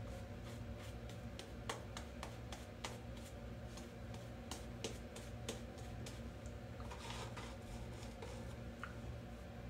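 Shaving brush working lather over the face and neck: irregular soft clicks and crackles of the lather and bristles, with a brief wetter swishing about seven seconds in, over a steady low hum.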